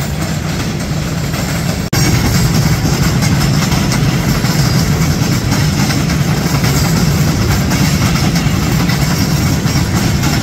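Diesel freight locomotive engine running steadily with a heavy low rumble. There is a cut about two seconds in, after which it is a little louder.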